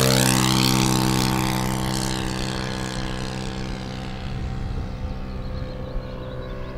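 Radio-controlled model airplane's engine and propeller passing close, its pitch dropping as it goes by at the start, then a steady note fading as the plane flies away.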